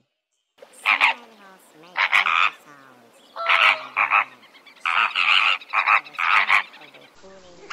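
A flock of flamingos honking: loud, short, goose-like calls in bursts about once a second, some doubled, over fainter calls from the rest of the flock.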